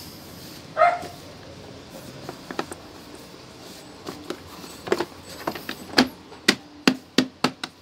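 A hand patting and pressing a rubber floor mat down onto a Honda Click 125 scooter's floorboard to bed it onto contact cement. It makes a run of sharp taps that come faster near the end, after a brief squeak about a second in.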